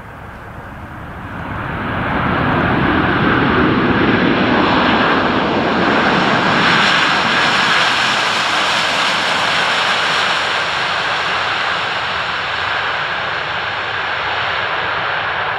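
Jet engines of a Ukraine International Airlines Boeing 737, CFM56 turbofans, running on its landing roll as it passes close by. The noise swells about a second and a half in, and a whining tone in it drops in pitch as the jet goes past, then fades slowly as it rolls away.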